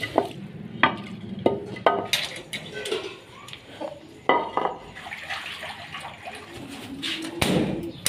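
A wet terracotta water bowl being scrubbed out with a cloth and handled, with water sloshing and sharp knocks of the clay bowl. A longer, louder rush of noise comes near the end.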